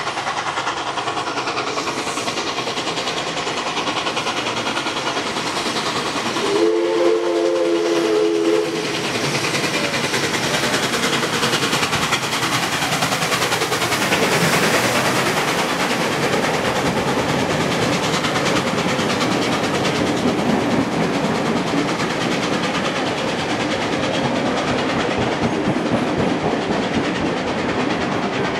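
Steam locomotive 5917, a NSW 59 class, running in at speed and sounding one whistle blast about two seconds long, several notes at once, a little after six seconds in. It passes close by about halfway through, and its train of carriages follows, wheels clattering over the rail joints.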